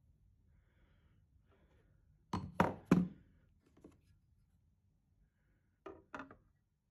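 Metal machinist hammers knocking as they are handled on a plastic kitchen scale: three quick sharp knocks as one hammer is lifted off and set down, then about three seconds later two lighter knocks as a stainless-steel-headed hammer with copper and brass faces is laid on the scale platform.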